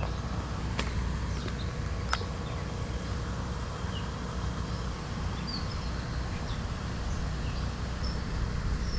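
Pond-bank ambience: a steady low rumble with faint short bird chirps scattered through. Two sharp clicks come about one and two seconds in.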